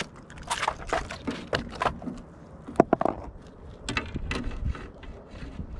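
Irregular clicks, knocks and rattles of a fish grip and a landed fish being handled on a plastic fishing board's deck, with a sharper knock about three seconds in.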